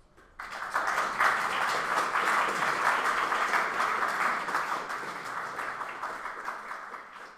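Audience applauding, starting suddenly about half a second in and slowly dying away toward the end.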